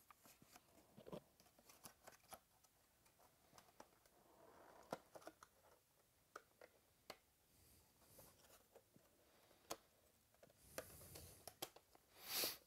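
Near silence: room tone with faint scattered clicks and soft rustles, and a short louder rustle near the end.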